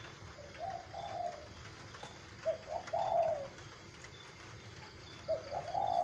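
Male spotted dove cooing in its cage: three coo phrases about two seconds apart, each a short note running into a longer one.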